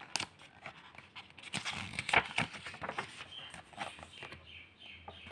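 Paper pages of a picture book being turned and handled: irregular rustles and soft taps, busiest about two seconds in.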